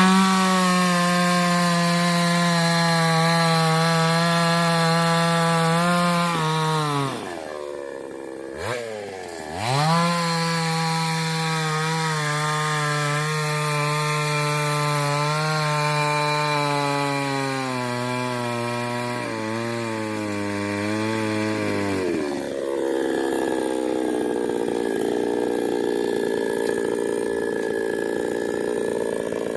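Chainsaw cutting a coconut tree trunk: a high, steady engine note that sags and falls away briefly about seven seconds in, comes back up and slowly drops under load. About twenty-two seconds in the steady note gives way to a rougher noise.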